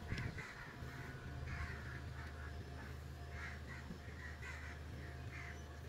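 Repeated short, harsh bird calls, several a second, with a low steady hum that starts about a second in.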